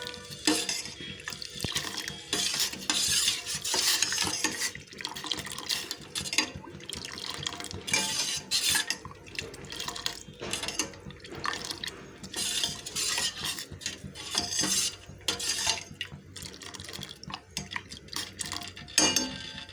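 A metal spoon stirring milk masala tea on the boil in a metal kadai, scraping and clinking against the pan in irregular strokes.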